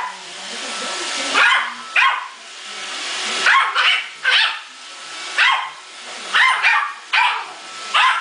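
Yorkshire terrier barking repeatedly at a running iRobot Roomba robot vacuum, a dozen or so sharp barks, often two in quick succession, with the Roomba's steady motor and brush noise running underneath.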